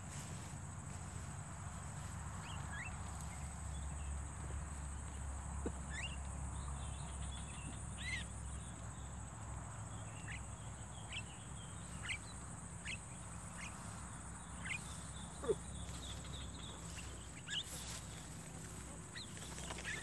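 Javan mynas giving short, scattered chirps, one every second or two, over a steady high-pitched whine and a low background rumble.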